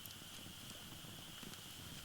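Wood fire burning quietly, with a few faint crackles.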